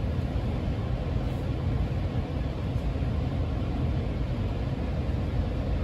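Steady low hum and rumble inside a JR Chuo Main Line local train carriage, standing at a station.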